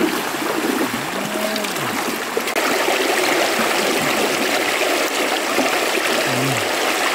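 Shallow stream water rushing and splashing through a bamboo slat fish-trap panel laid in the current. The rush grows louder about two and a half seconds in.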